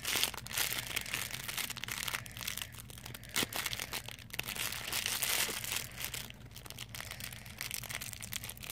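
Clear plastic packaging bag crinkling and crackling in irregular bursts as fingers work at it to get it open, busiest in the first few seconds and thinning out toward the end.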